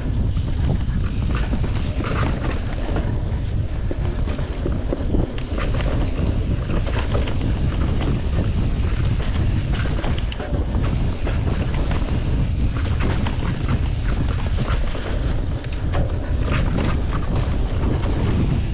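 Steel hardtail mountain bike ridden along a dirt trail: steady wind buffeting on the action camera's microphone, with tyre noise and scattered clicks and rattles from the bike.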